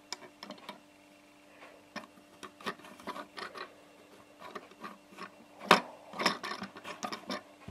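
Scattered light clicks and taps of hands handling small plastic Lego pieces, with one sharper click about six seconds in, over a faint steady hum.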